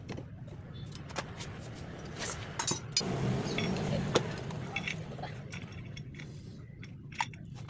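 Light metallic clinks and taps of hand tools and parts, with a few sharper knocks about two and a half seconds in and a rougher rushing noise for a couple of seconds in the middle.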